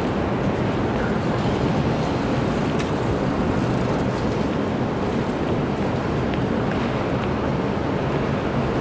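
Steady low rumble of road traffic and bus engines, with no single event standing out.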